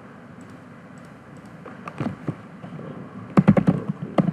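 Computer keyboard typing: a few scattered keystrokes, then a quick run of key clicks about three and a half seconds in, as a web address is typed.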